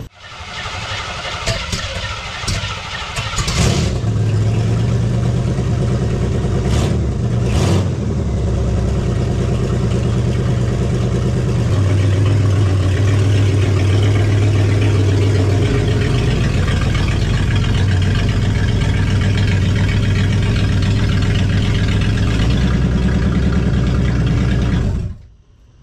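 AMC 360 V8 cranked by the starter for about three seconds, then catching and running steadily. The sound cuts off suddenly near the end.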